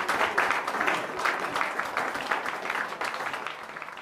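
Audience applauding with many hands clapping, dying away toward the end.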